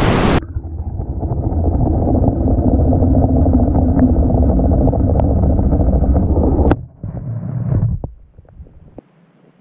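Muffled, low underwater rumble picked up by a GoPro inside its waterproof housing after it sinks, with a few faint ticks. The rumble drops off suddenly about seven seconds in, returns briefly, then fades to a faint hiss.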